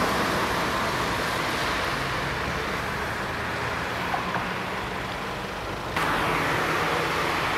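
Steady rush of distant road traffic with a faint low engine hum, jumping louder about six seconds in.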